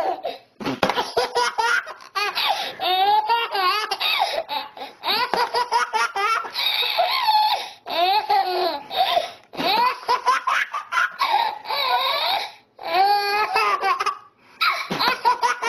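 A baby laughing hard and high-pitched, in repeated fits broken by short pauses for breath.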